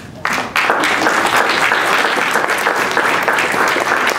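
Audience applauding, many hands clapping, setting in about half a second in and holding steady.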